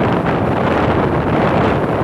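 Strong monsoon wind buffeting the microphone in loud, steady rumbling gusts that drown out the surf.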